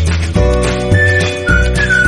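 Background music with a steady beat, deep bass notes and a high whistle-like melody line.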